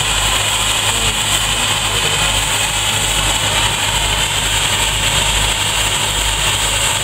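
Steam traction engine standing under steam, giving a steady hiss of steam with a low rumble beneath it and no regular chuff.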